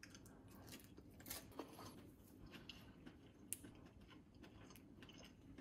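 Faint crackling and tearing of the crisp skin and meat of an air-fried whole chicken being pulled apart by hand, in a string of small irregular crackles with one sharper click about three and a half seconds in.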